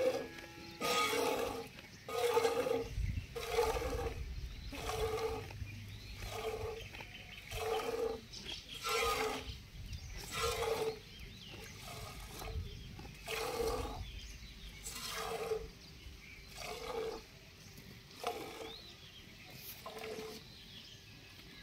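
Hand-milking a goat into a stainless steel pot: a steady rhythm of milk squirts, about one a second, each a short hiss with a ringing note from the metal pot. The strokes get a little fainter in the last few seconds.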